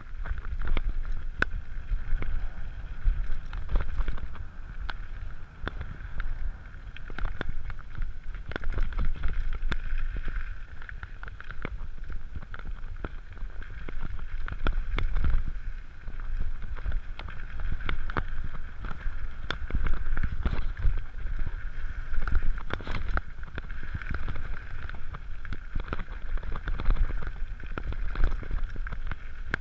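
Mountain bike rolling fast down a gravel and dirt trail: wind buffeting the microphone, tyres crunching over loose stones, and frequent sharp rattles and knocks as the bike bumps over the rough ground.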